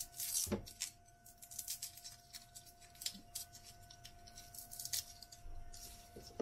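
Dry, papery garlic skin crackling and rustling as fingers peel it off the cloves, in quick irregular crinkles.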